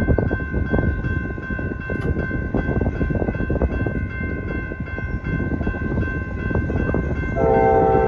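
Railroad grade-crossing bell ringing steadily as the crossing gates lower, over a heavy, uneven low rumble. About seven seconds in, the approaching Norfolk Southern locomotive's multi-chime air horn starts sounding, a loud chord of several tones.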